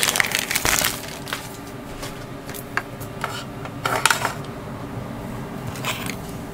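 Small hard plastic model-kit parts clicking and tapping together as they are handled, after a plastic bag crinkles in the first second. The clicks are scattered, and the loudest cluster comes about four seconds in.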